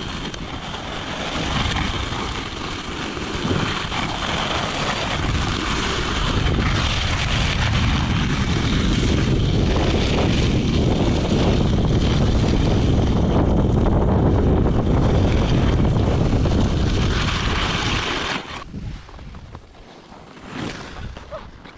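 Wind buffeting a selfie-stick action camera's microphone during a fast run on Sled Dogs snow skates, mixed with the skates scraping and carving over hard-packed snow. About 18 seconds in it drops sharply to a much quieter, patchy wind hiss.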